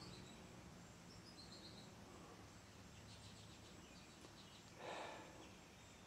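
Near silence: a 42-inch Hunter Silent Breeze ceiling fan coasting down with its motor switched off, under a faint low hum. A few faint high chirps come about a second and a half in, and a brief soft rustle about five seconds in.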